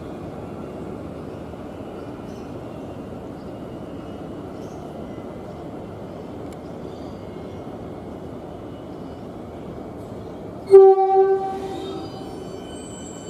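A train running with a steady rumble, then nearly eleven seconds in a short, loud single-note train horn blast that fades out over about a second.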